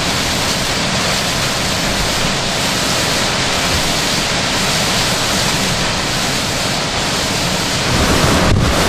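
Hurricane winds with driving rain: a steady, dense rush of noise that grows louder about eight seconds in.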